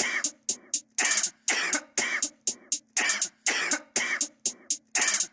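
A hip-hop beat built from sampled coughs: short coughs repeating in a steady rhythm, about two a second, some of them doubled, over a faint steady low tone.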